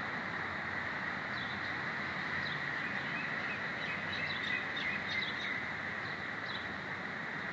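Small birds chirping briefly, several times, over a steady background rumble and hiss.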